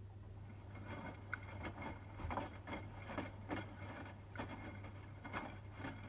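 Hotpoint WMFUG 942 front-loader's drum tumbling a wet, sudsy washload, water sloshing and splashing with irregular soft slaps about twice a second, over a steady low hum. This is the main wash of a bed & bath 60° cycle, nearly heated to 60°C.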